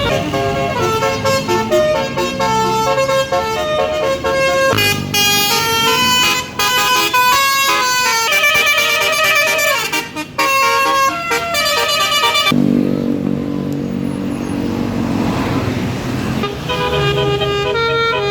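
Tour bus basuri horn, a multi-tone melody horn, playing a tune as a run of stepped notes that jump up and down in pitch. About twelve seconds in the tune breaks off for a few seconds of lower, noisier sound, then the notes return near the end.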